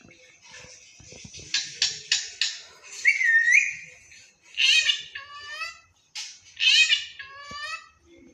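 Pet parrot whistling and calling: a quick series of shrill, high-pitched notes that slide in pitch, with a wavering whistle about three seconds in and the loudest calls near the middle and towards the end.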